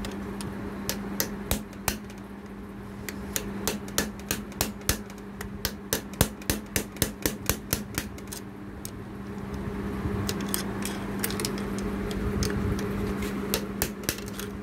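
Light hammer taps on metal, knocking the old needle bar bushing out of a Juki sewing machine: an uneven run of sharp strikes, quickest in the middle. A steady low hum runs underneath.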